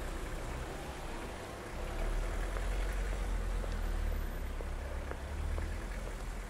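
Steady low outdoor rumble and hiss, with faint footsteps on asphalt about twice a second as someone walks.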